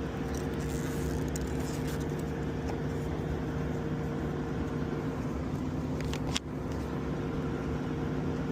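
Packaged rooftop HVAC unit running in heating mode: a steady mechanical hum of its motors and fan, with a brief click about six seconds in.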